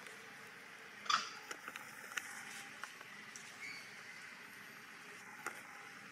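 Scattered soft clicks and rustles, the loudest about a second in, from a long-tailed macaque picking through dry leaves on stone; a faint high bird chirp late on.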